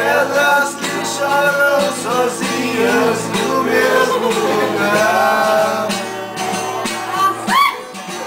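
Several men singing a song together in Portuguese to an acoustic guitar.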